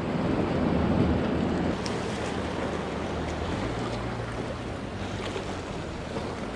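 Small waves washing and splashing against the rocks of a breakwater, louder for the first couple of seconds, with wind on the microphone and a low steady hum underneath.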